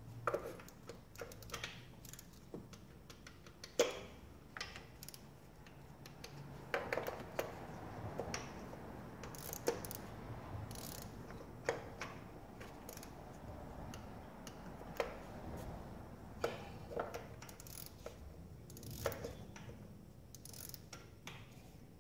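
Hand ratchet clicking in short runs, with scattered metallic clinks of tools and bolts, as the intake manifold bolts are run down and tightened.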